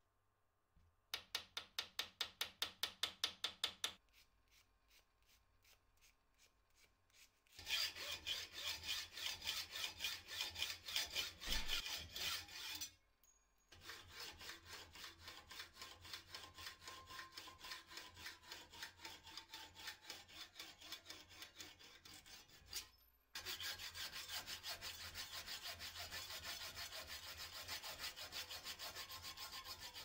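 Metal rod being shaped by hand into new knife pins: rapid, even back-and-forth rasping strokes, several a second, in a few separate runs that start and stop abruptly.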